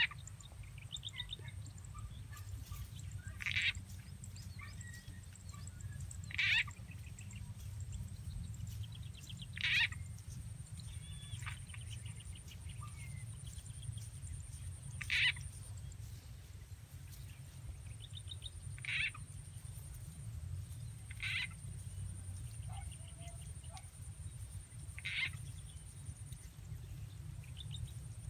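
Short croaking 'kokak' frog calls repeating about every three to four seconds, the call used to lure frogs. Underneath runs a steady low wind rumble with a faint constant high whine.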